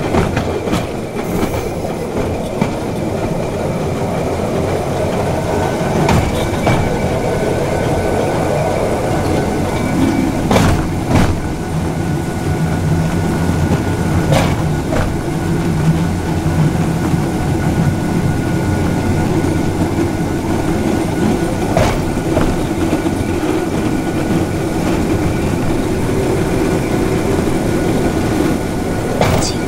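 Rail bike's steel wheels rolling along the track with a steady rumble, with a sharp clack now and then as they pass over rail joints.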